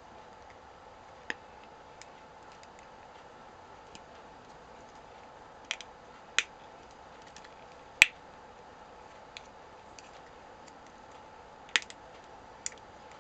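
Scattered sharp clicks and taps, about nine of them at uneven intervals, the loudest about eight seconds in, over a steady low hiss.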